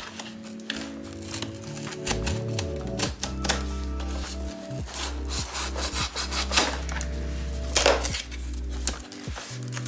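Scissors cutting through a cardboard box seam in a run of short, scraping cuts, with cardboard tearing, over background music.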